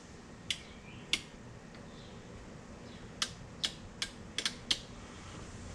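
Sharp clicks of plastic dash trim being pried and unclipped: two a little over half a second apart near the start, then a quick run of about six about three seconds in.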